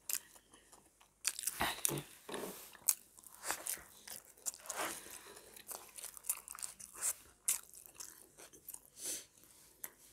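Close-up eating of a homemade vegetable burger: irregular biting and chewing, with crunchy mouth sounds.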